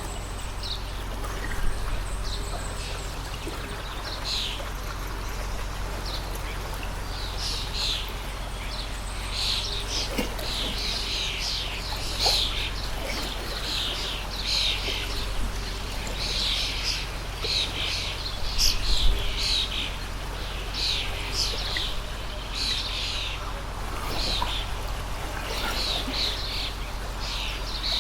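Small birds chirping in quick, repeated short calls over the steady rush of a flowing stream. The chirping grows busier about a third of the way in.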